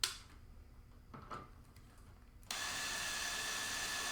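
A light click and a couple of soft knocks, then a power drill starts suddenly about two and a half seconds in and runs steadily, driving a screw into the motherboard mounting hole.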